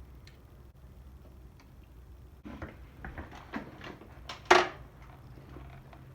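Scattered light knocks and clicks from handling a motorcycle while its freshly adjusted suspension is pushed and tested, with one louder knock about four and a half seconds in.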